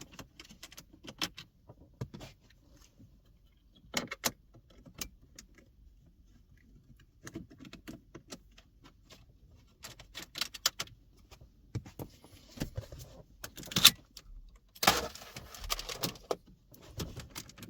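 Scattered clicks and rattles of a Phillips screwdriver and small plastic car-interior parts being handled as two screws are undone from the gear-stick assembly. The sharpest click comes about 14 s in, followed by a denser rattle.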